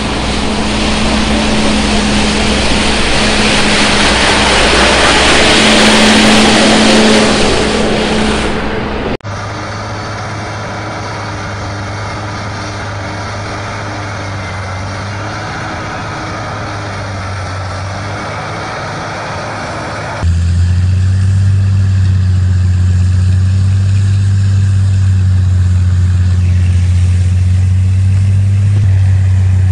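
Snow-clearing machines in three sound scenes. First, a tractor with a front rotary sweeper brush: loud rushing noise over a steady engine hum. About nine seconds in, the sound changes abruptly to the quieter steady engine drone of a wheel loader with a snow blower attachment; about twenty seconds in, it changes again to the louder, deeper steady drone of a loader-mounted rotary snow blower throwing snow.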